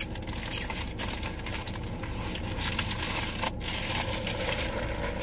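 Paper food wrappers and a takeout bag being crumpled and crinkled in irregular crackles, over a steady low hum.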